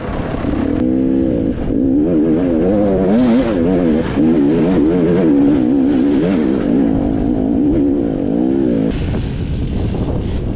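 Dirt bike engine revving up and down in quick, repeated throttle bursts as the bike climbs over rocks. The revving stops about nine seconds in, leaving a lower, rougher noise.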